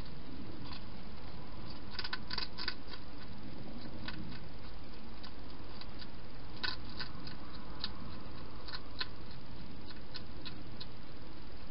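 Hedgehog feeding at bowls inside a plastic feeding station: irregular small clicks and crunches, bunched about two seconds in and again from about seven to nine seconds, over the camera's steady hiss.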